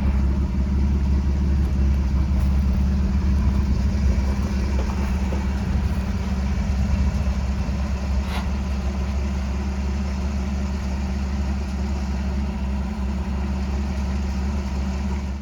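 1982 Chevrolet C10 pickup's engine running steadily on its newly fitted Rochester 2SE carburetor, a deep even drone. A single sharp click comes about eight seconds in.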